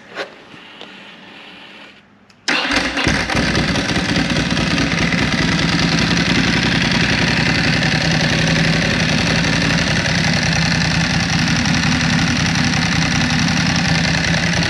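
Two clicks, then the 2006 Ducati Sport Classic Paul Smart's air-cooled L-twin starts from cold about two and a half seconds in, catching almost at once, and idles steadily.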